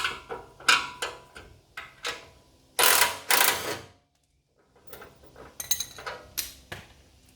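DeWalt cordless impact driver with a 17 mm socket firing in two short bursts back to back about three seconds in, loosening bolts. Scattered metallic clinks and clicks of the tool, socket and hardware come before and after.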